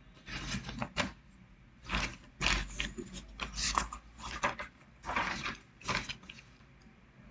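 Ballpoint pen scratching on a paper sheet as a tick mark is drawn, with the paper rustling and being handled: a run of short, uneven scratchy rustles.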